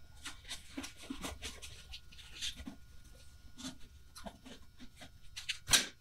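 Fabric dust cover rustling and swishing as it is lifted and pulled down over a small band saw, in a run of irregular scuffs with one louder swish near the end.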